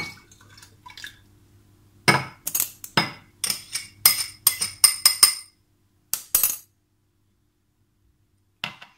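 A metal spoon scraping and knocking against the inside and rim of a drinking glass to get out thick chia-seed milk: a quick run of about a dozen bright, ringing glass clinks over about three seconds, then one more brief clink a second later. A soft pour of liquid into a glass jar comes at the very start.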